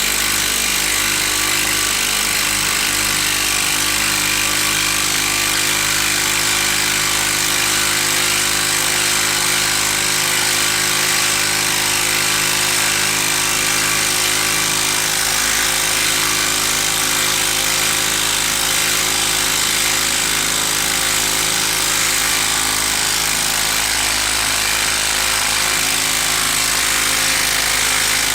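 Milwaukee 12-volt brushed impact driver hammering continuously under load as it drives a screw, with a steady rapid rattle of impacts and motor whine.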